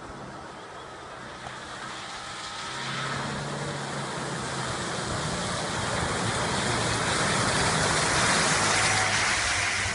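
Suzuki Jimny driving through shallow water and mud, its engine running steadily under throttle while water splashes and sprays off the wheels and body. Engine and splashing grow louder as it approaches, loudest near the end.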